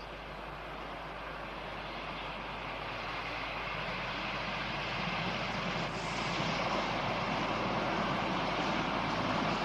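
Talent diesel multiple unit running past on the line, its engine and running noise growing steadily louder as it approaches.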